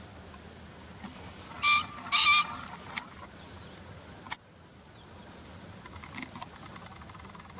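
Male green pheasant crowing: two loud, harsh honking notes about half a second apart, followed by a couple of sharp clicks. Faint calls of small birds sound in the background.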